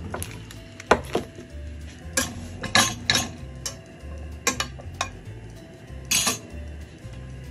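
Kitchen knife and non-stick frying pan clinking and knocking: a series of sharp metal clicks and knocks as a piece of pig fat is cut from its block and the pan is set on a gas stove's grate. Background music with a bass line plays underneath.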